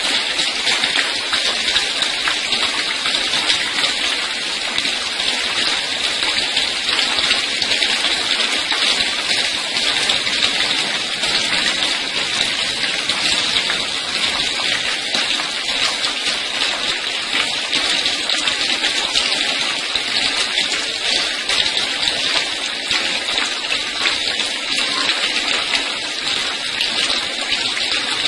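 Water showering down like rain in a steady, even hiss: artificial rain sprayed over a caged songbird.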